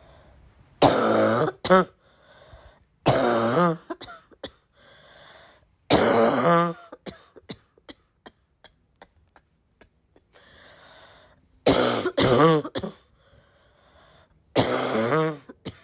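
A person's hard, barky coughing fit: about six loud coughs, each ending in a short pitched tail, with quieter breaths between. The coughs stop for a few seconds midway, then come two close together near the end.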